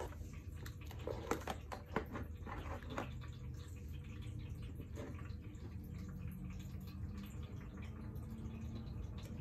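A few light clicks and taps from handling a plastic handheld digital multimeter and its test probes as the meter is set down and the probes touched to the battery pack, over a steady low hum.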